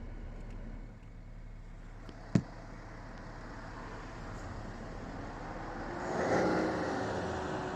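BMW 535d's twin-turbo straight-six diesel, DPF deleted, running steadily at low revs. A single sharp click comes a little over two seconds in, and about six seconds in the sound swells louder with a rising hum, then eases off toward the end.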